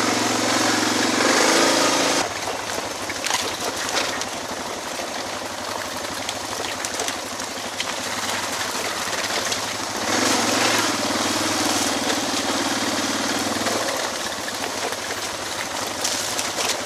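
Suzuki DR650's single-cylinder four-stroke engine running at low, varying throttle over a steady rush of noise. It pulls harder for the first two seconds, eases off, then pulls harder again from about ten seconds in.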